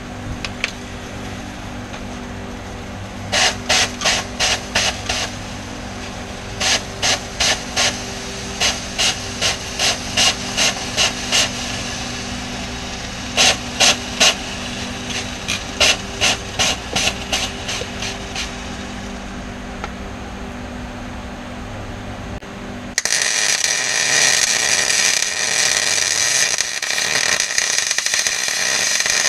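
Runs of sharp clicks, several a second, over a steady hum, then about 23 seconds in an Eastwood wire-feed welder strikes its arc and the arc crackles and hisses steadily as he welds on the car's underside.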